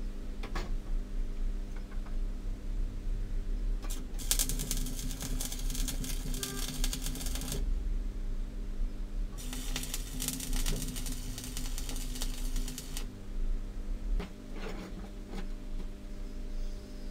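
Electric arc welding on wrought-iron scrollwork: two welding runs of about three and a half seconds each, a dense steady crackle, with a short pause between them. Light metal knocks come shortly before and after the welds, over a steady low electrical hum.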